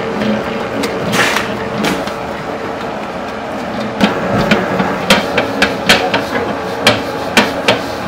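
Commercial dough mixer running, its dough hook kneading dough in a stainless steel bowl: a steady motor hum with sharp knocks, few at first and then coming one to three a second from about halfway in.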